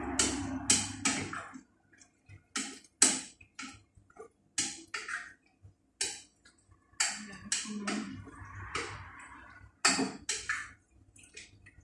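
A spoon scraping and knocking against a cooking pot on the stove, in a series of short, sharp strokes at irregular intervals.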